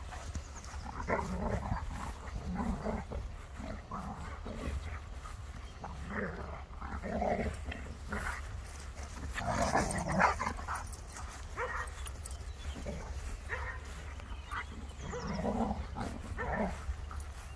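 Two Kuvasz dogs play-fighting, giving short growls and vocal sounds at irregular moments, the loudest about ten seconds in, over a steady low rumble.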